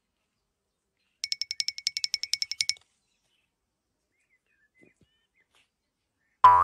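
A mating tortoise's vocalisation: a quick run of about sixteen short, high chirps over a second and a half, then near the end one louder, lower squeaking call.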